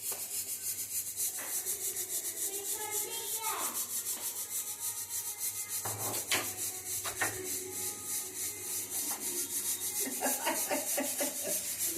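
Rapid, even rubbing and scraping strokes as burnt green cardamom is crushed into a fine powder by hand, with a couple of sharp knocks about six and seven seconds in.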